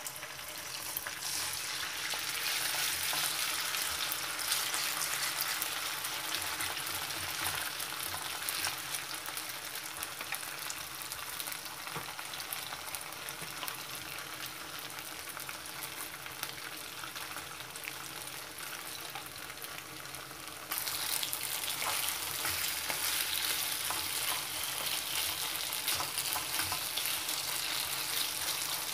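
Marinated chicken pieces sizzling as they fry in hot oil in a non-stick wok, stirred with a wooden spatula. The sizzle jumps louder suddenly about two-thirds of the way through.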